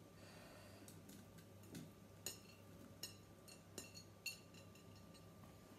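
A few faint, light clinks and ticks as diced cooked chicken is scraped off a plate into the steel mixing bowl of a Thermomix TM6, over a faint steady hum.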